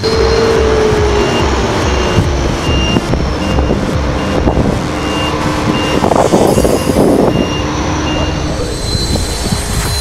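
Harvest machinery engines running, with a vehicle's reversing alarm beeping about twice a second from about a second in until near the end.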